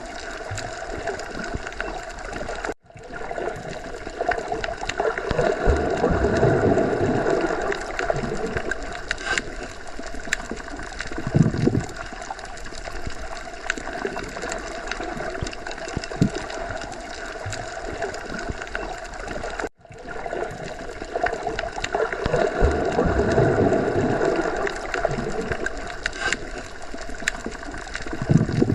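Underwater ocean ambience: a steady muffled wash of water noise with slow, deep swells rising and falling. The sound cuts out for an instant twice, about three seconds in and again about twenty seconds in.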